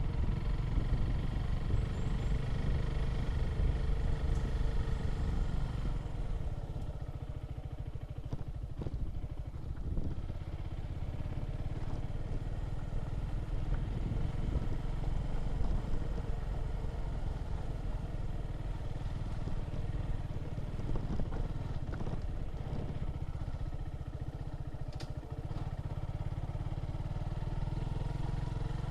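A motor vehicle's engine running steadily on the move, with road rumble. The engine note shifts up and down in pitch.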